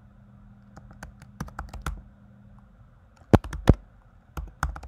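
Computer keyboard being typed on: irregular, uneven keystrokes, with two louder strokes a little over three seconds in and a quick cluster near the end.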